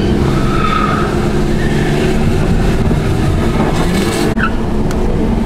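Car engines running hard with short tyre squeals as cars drift sideways through a bend. The sound breaks off abruptly a little after four seconds and carries on.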